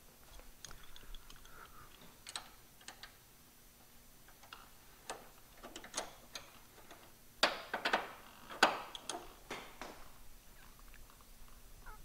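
Combination wrench and Allen key clicking and clinking against the strut-shaft nut as it is tightened down on a caster/camber plate. The clicks are faint and irregular, with a quick run of louder clinks about seven and a half to nine seconds in.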